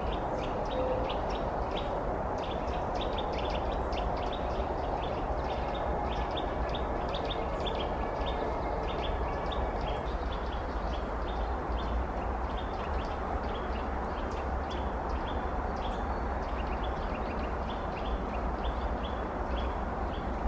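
Small birds chirping, short high notes repeated over and over, over a steady low background rumble.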